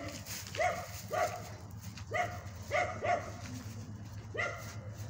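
Dog barking off-screen: six short barks at uneven intervals.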